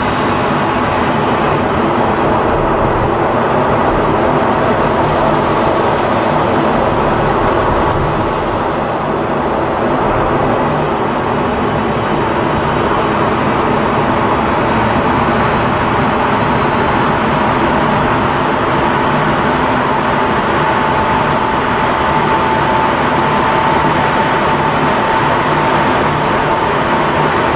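Steady noise of the jet engine and rushing air inside an F-16 fighter's cockpit during aerobatic manoeuvres. A faint high tone comes in near the end.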